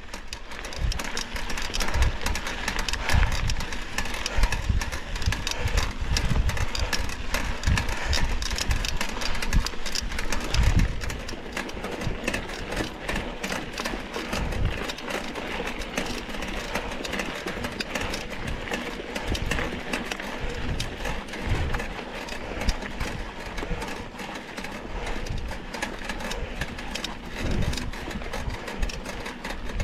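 Mountain bike ridden on a dirt trail, heard from an onboard camera: steady tyre and trail noise with rapid rattling clicks and irregular low thumps of wind buffeting the microphone.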